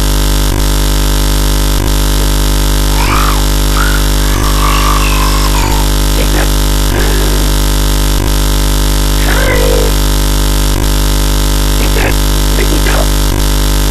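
Loud, steady electrical hum and buzz with many overtones swamping the recording, with a faint click about every second and a quarter; a fault in the recording. Faint voices can be made out beneath it.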